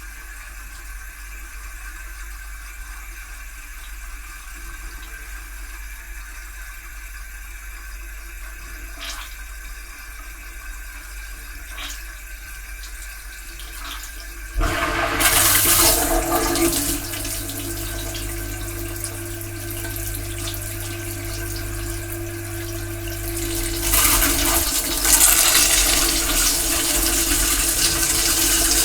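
Dishwasher heard from inside the tub: quiet at first with a few faint clicks, then about halfway through the wash pump starts with a steady low hum and water sprays loudly over the racks. The hum stops near the end, but the spraying goes on.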